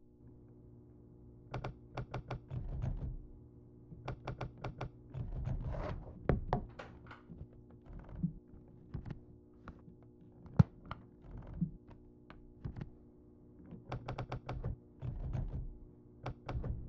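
Typewriter keys clacking in quick bursts of strokes, with pauses between runs and one sharp single strike a little past the middle, over a low steady drone.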